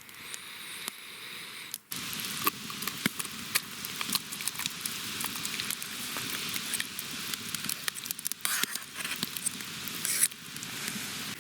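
Food sizzling in a camp frying pan, a steady hiss with frequent sharp pops and crackles.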